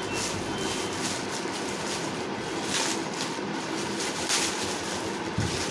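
Plastic packaging rustling and crinkling as a courier pouch and a clear poly bag are handled and opened, in uneven bursts.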